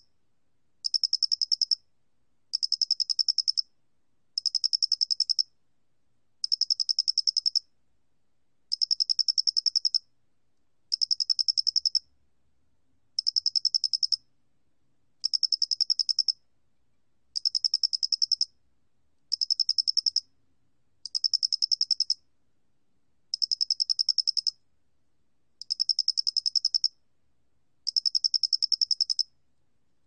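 Male Loxoblemmus doenitzi (모대가리귀뚜라미) cricket singing, recorded at 29 °C: high-pitched chirps, each a rapid train of pulses about a second long, repeated regularly about every two seconds.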